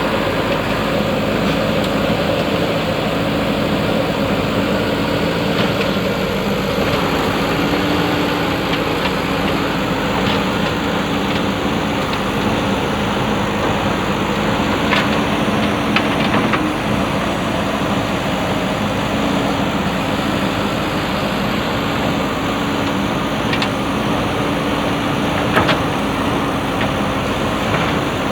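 Diesel engine of a JCB 3DX backhoe loader running steadily as a low hum, with a few short sharp knocks now and then.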